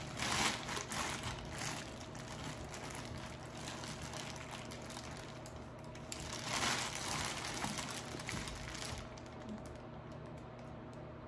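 Close-up eating and food-handling sounds during a seafood meal: dense small clicks and crackles, with a louder crackly patch about two-thirds of the way in, dying down near the end. A faint steady hum sits underneath.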